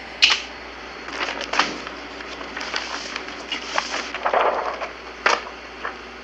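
Stiff radiograph film sheets being handled and slid onto a light box: a series of short crackling rustles and sharp clicks. The loudest comes about a quarter second in, and another comes about five seconds in.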